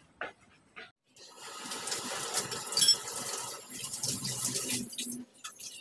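Kitchen tap running water into a steel sink for about four seconds, starting about a second in and shut off near the end, with a brief clink partway through.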